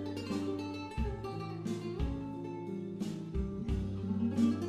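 Background music: plucked acoustic guitar with a steady bass line, a new chord or note about once a second.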